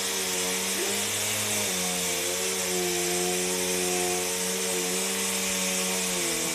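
Vacuum cleaner motor running with a steady hum. Near the end its pitch starts to fall as the motor winds down after its plug is pulled from the wall.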